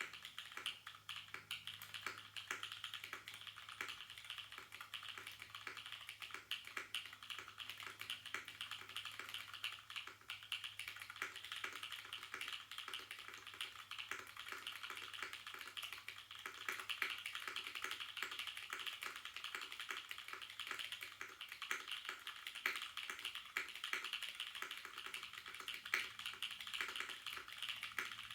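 Continuous fast typing on a UTD 356 Mini mechanical keyboard with lubed Corsa switches and GMK Botanical keycaps: a dense, even stream of keystroke clacks with occasional louder spacebar hits.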